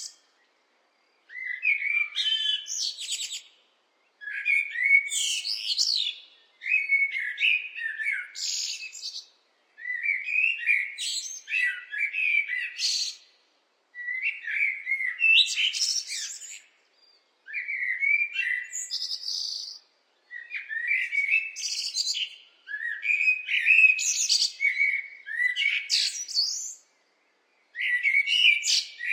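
Blackbird singing: a run of warbling, whistled phrases, each about two to three seconds long with a brief pause between them, several of them ending in a higher twitter.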